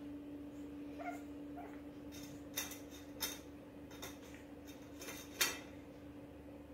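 Black pug puppy gives two brief faint whimpers, then a string of sharp clicks and clinks as it noses an empty stainless steel bowl on a tiled floor. The loudest clink comes about five and a half seconds in.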